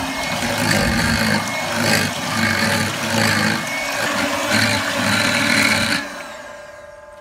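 Electric hand mixer running, its twin beaters whisking buttermilk and water in a steel bowl, the motor's hum swelling and dipping as it churns. It cuts off about six seconds in.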